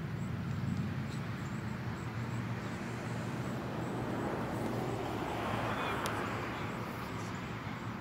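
Outdoor ambience with a low steady rumble and faint voices; a passing vehicle swells and fades between about four and seven seconds in.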